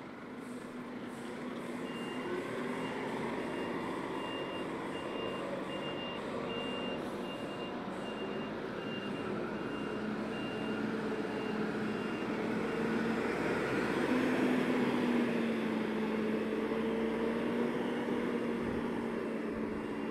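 Diesel engine of a MAN flatbed recovery truck running as the truck moves off and drives closer, getting louder in the second half. A vehicle's reversing alarm beeps steadily, one high tone repeated at an even pace, for about ten seconds and then stops.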